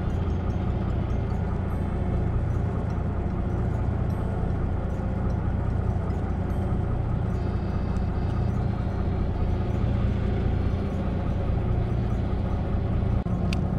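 Mitsubishi inboard engine of a small fishing boat running steadily at low revs, a constant low drone. One sharp click sounds near the end.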